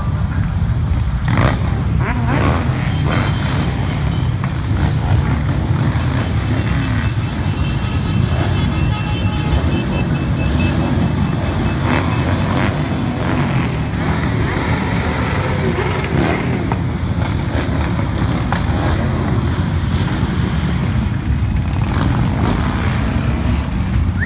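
Many motorcycle engines running steadily as a procession of cruiser motorcycles rides past, mixed with passing car traffic.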